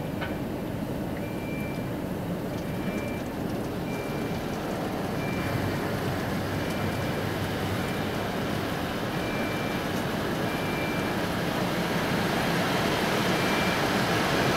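Automatic car wash running, heard from inside the car: a steady rushing noise with a low hum that grows slightly louder. Short high beeps repeat about once a second, with a longer gap near the end.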